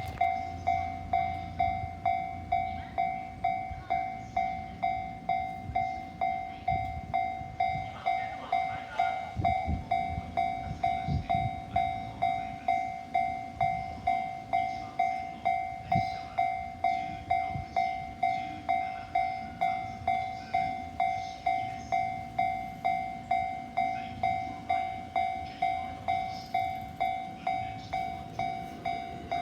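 Japanese railway level-crossing warning bell ringing, one bright electronic ding repeated quickly and evenly, with low rumbling thuds around ten seconds in.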